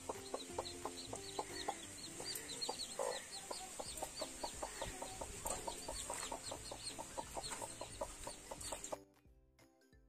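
Newly hatched chicks peeping in quick, high, falling chirps while the broody hen clucks. The sound drops almost to silence about nine seconds in.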